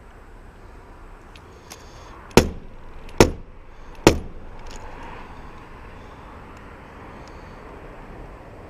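Three sharp knocks about a second apart. They come from a jammed Bostitch coil nailer being struck to free a nail wedged in its nose.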